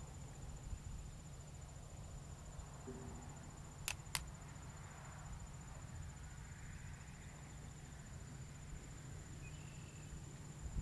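Faint steady low hum with a thin high tone above it, broken by two sharp clicks close together about four seconds in.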